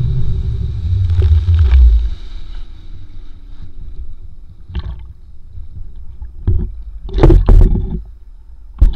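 Wind and rushing water buffeting a pole-mounted action camera's microphone while wakeboarding, dropping off about two seconds in as the rider goes into the water. Then water sloshing and splashing around the camera, with several short loud splashes.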